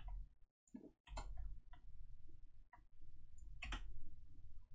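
A handful of separate clicks from a computer keyboard and mouse, spread about a second apart, with the loudest near the end, over a faint low hum.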